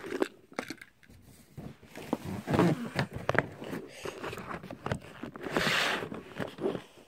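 Handling noise: scattered knocks, clicks and scrapes of things being picked up and moved, with a longer rustle about five and a half seconds in.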